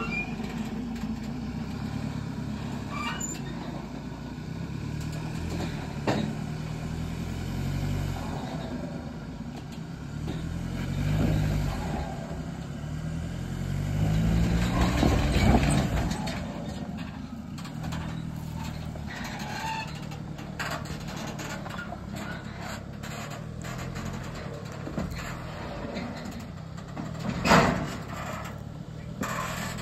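Chevy Colorado's 2.8L Duramax diesel engine working under load as it tows a loaded car trailer up rocks, its revs rising and falling with two louder pulls in the middle. Near the end a single loud clunk as the trailer drops over a rock ledge.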